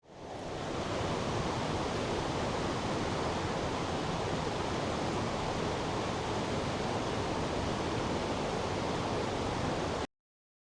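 Rushing water of the Oirase mountain stream, a steady, even roar that fades in over about a second and cuts off suddenly near the end.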